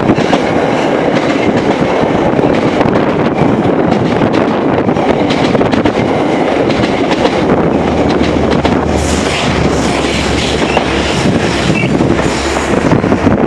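A deadhead set of stainless-steel Shoreliner coaches passing at speed a few feet away: a loud, steady rush of wheels on rail and wind, with clickety-clack. A low hum grows in about eight seconds in.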